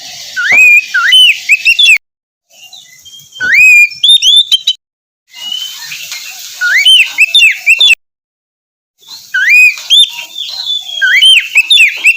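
Oriental magpie-robin (kacer) singing loud phrases of rising and falling whistles mixed with scratchy notes. The song cuts off abruptly into complete silence three times, each gap half a second to a second long.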